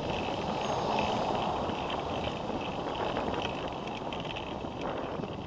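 Steady rushing of wind on the microphone and tyre noise from a bicycle rolling along a paved bike lane, with a light, uneven rattle over it.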